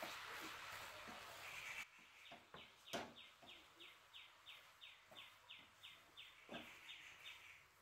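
A bird chirping in a fast, even series of short, falling chirps, about three a second. Under it are the soft scraping and a few knocks of a wooden spatula stirring a thick coconut mixture in a kadai.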